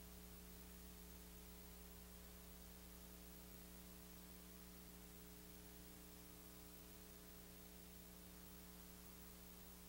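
Near silence: a faint, steady electrical mains hum with hiss, the background of a blank stretch of videotape.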